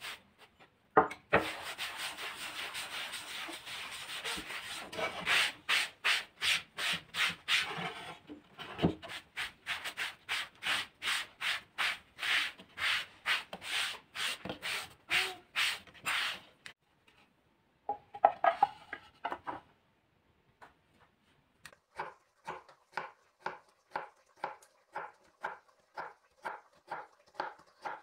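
A sponge rubbing oil into a wooden cutting board, in quick back-and-forth strokes about two to three a second, with a few short pauses.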